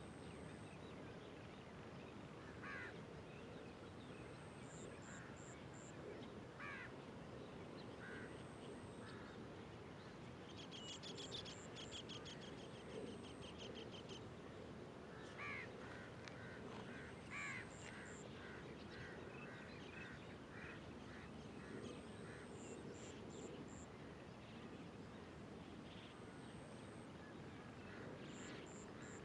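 Faint dawn birdsong: scattered short calls over a steady low background hiss, with a rapid chattering trill for a few seconds near the middle.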